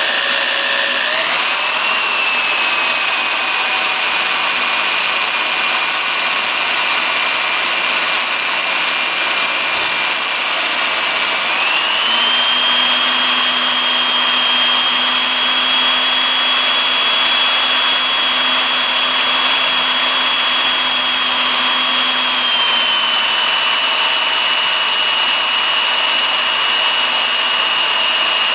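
Corded electric drill running in reverse, a small left-hand bit drilling into a broken bolt sheared off in an axle. The motor whine steps up in pitch about a second in and again near the middle, then eases down a little later.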